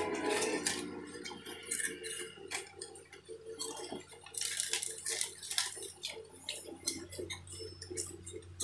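Small plastic snack packets crinkling and tearing as they are opened and handled, in quick irregular crackles, over a low steady hum.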